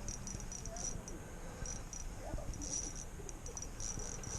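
Insects chirping in short, high-pitched trills that start and stop again and again, over a low rumble of wind on the microphone.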